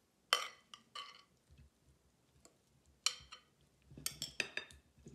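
Metal serving spoon clinking and scraping against a glass mixing bowl while cucumber salad is pushed out onto a plate. A sharp clink comes a third of a second in, another about a second in, one at about three seconds, and a quick run of clinks near the end.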